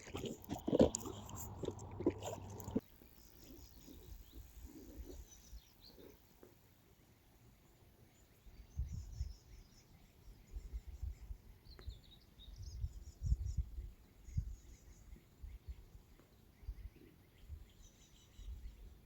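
Faint birdsong, several short chirping phrases, over low intermittent rumbles. A louder stretch of knocks and noise in the first three seconds cuts off suddenly.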